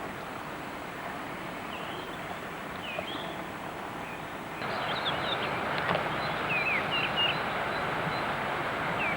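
Outdoor ambience: a steady rushing background with short, high chirps of small birds scattered through it. Everything gets louder about halfway through, and the chirps come more often after that.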